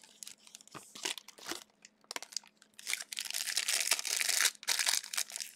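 Plastic wrapper of a trading-card pack crinkling as it is handled and torn open. There are a few light clicks first, then dense crinkling from about three seconds in.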